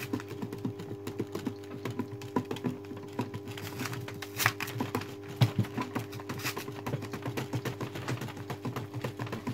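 Quick, irregular light clicks and taps of stiff beeswax foundation sheets being handled and lifted off a stack in a wooden cutting jig, with two louder knocks around the middle. A steady electrical hum runs underneath.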